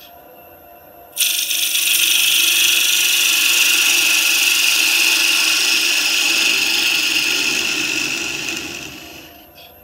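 Spindle gouge cutting across the face of a spalted beech disc spinning on a wood lathe, a loud even hiss of the cut that starts suddenly about a second in and eases off near the end, over the lathe's steady hum.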